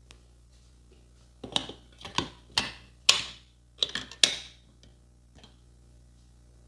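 Percussive massage strokes, hands slapping and tapping on a person's head and shoulders: a quick, uneven run of about eight sharp slaps over some three seconds.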